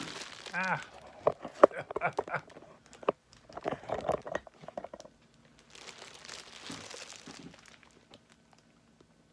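Plastic packaging of art print sleeves crinkling and rustling as it is handled, with a few sharp clicks.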